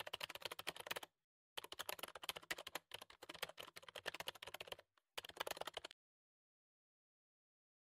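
Rapid computer-keyboard typing clicks in three bursts over about six seconds: a typing sound effect laid under on-screen text that appears letter by letter.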